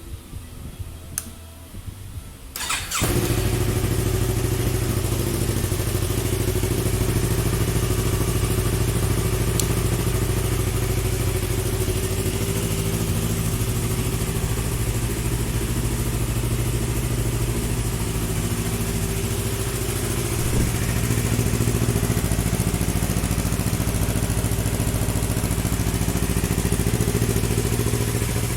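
Yamaha YZF-R3's parallel-twin engine starting about three seconds in, then idling steadily.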